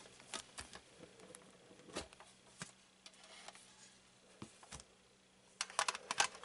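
Faint taps and clicks of hands handling a metal trading-card tin, then a quick run of clicks and rustling near the end as the lid is lifted off.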